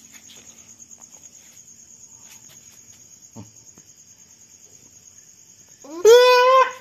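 A goat bleats once, loudly, near the end: a single call that rises at the start and then holds for under a second. Crickets chirp steadily throughout.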